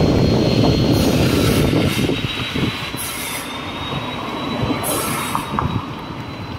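A heavy vehicle rumbling, loudest for the first couple of seconds and then easing, with a thin steady high-pitched squeal over it and short hisses about every two seconds.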